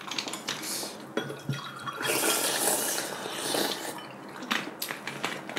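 A person slurping hot soup broth from a bowl: a long noisy slurp about two seconds in, lasting over a second, with a few small clicks around it.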